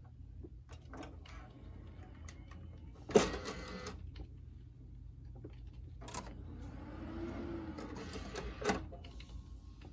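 Compaq Presario 6016US desktop's optical drive tray being worked: a sharp clack about three seconds in as it opens, a lighter knock as a DVD is laid on it, and a louder clunk near the end as the tray is pushed shut, with a few small clicks and a steady low hum throughout.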